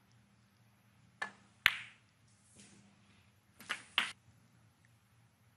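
Snooker balls clicking: a light click of the cue tip on the cue ball, then a louder, sharper click as the cue ball strikes an object ball less than half a second later. Two more short ball clicks follow about four seconds in.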